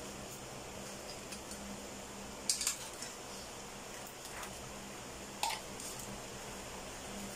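Metal kitchen tongs clicking against the pan and fish as fried tilapia is laid into coconut-milk sauce: a few sharp clicks about two and a half seconds in and one more about five and a half seconds in, over a low steady hum.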